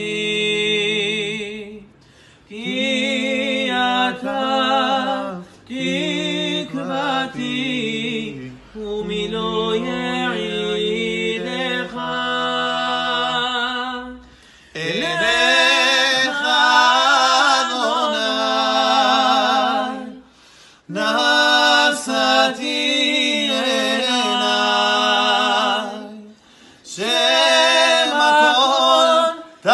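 Men singing a Hebrew religious song a cappella, in long ornamented phrases with wavering pitch, broken by a few short pauses for breath.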